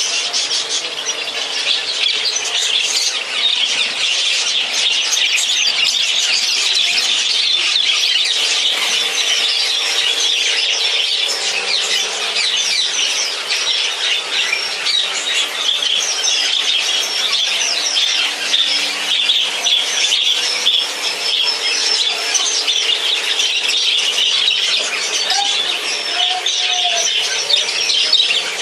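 Many caged parrots, budgies among them, calling all at once in a dense, continuous chorus of high, short chirps and squawks.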